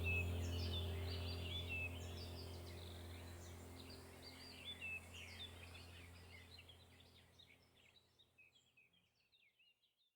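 Many small birds chirping and twittering together over a low steady hum, the whole chorus fading out to silence near the end.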